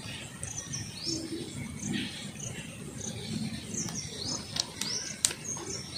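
Birds chirping in the background, with a short high chirp repeating about every three-quarters of a second and a few rising chirps. A few sharp clicks come near the end as a plastic bottle is handled.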